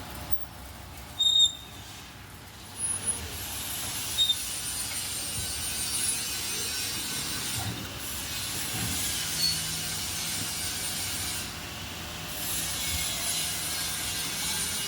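Welding on steel furniture parts: a steady hiss that stops briefly twice as the arc is broken and restarted.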